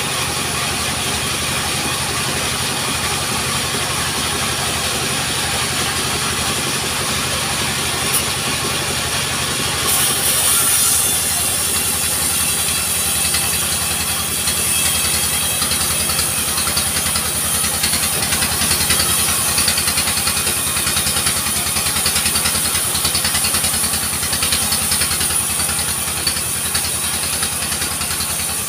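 Engine-driven portable sawmill running steadily. About ten seconds in its sound briefly swells, then stays louder and brighter, as a log is pushed through the saw.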